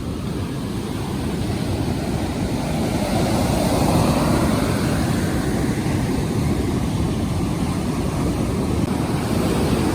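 Surf breaking and washing up the beach, mixed with wind on the microphone; the wash swells louder around the middle and then eases.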